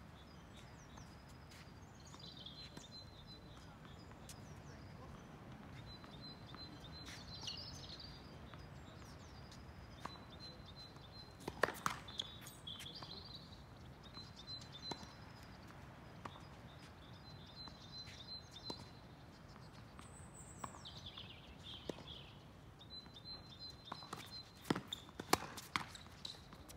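Faint sharp knocks of a tennis ball being struck by rackets and bouncing on a hard court: a few about halfway through and a quick run of them near the end. Birds chirp in short high repeated notes throughout.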